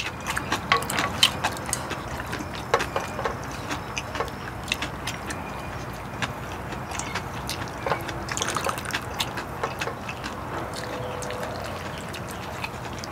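Pork-bone stew broth being ladled and poured into a small bowl, with sloshing liquid and many small clicks and knocks of a metal ladle, spoon and chopsticks against the bowls and the pot.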